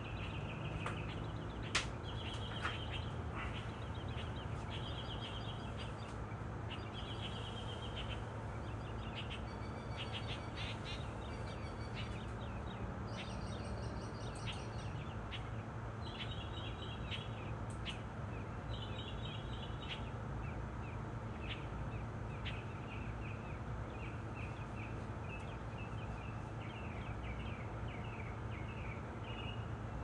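Several wild birds singing and chirping in short, repeated phrases, over a steady low background rumble, with a sharp click about two seconds in.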